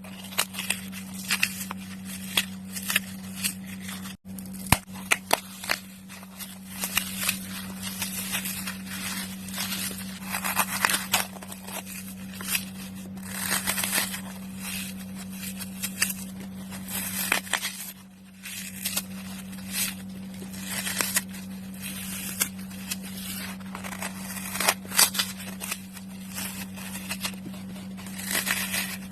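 Dry floral foam being crushed: dense, irregular crunching and crackling with sharp snaps, easing briefly about two-thirds of the way through. A steady low hum runs underneath.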